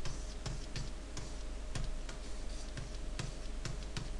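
Stylus tapping on a drawing tablet while handwriting: irregular light clicks, about three a second, as the pen touches down for each stroke.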